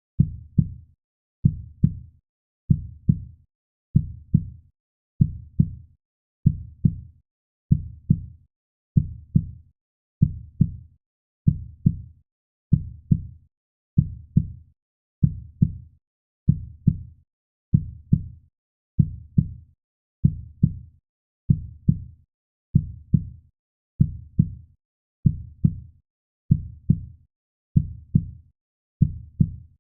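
Heartbeat sound: a steady, low double thump, lub-dub, repeating about 55 times a minute.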